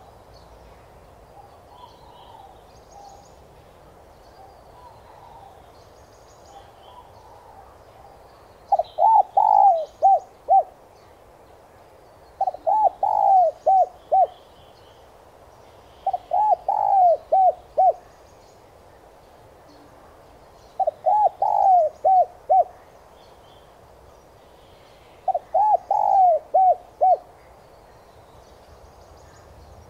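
Spotted doves cooing. Faint, distant cooing for about the first eight seconds, then five loud phrases of several quick coos each, roughly every four seconds. Small birds chirp faintly in the background.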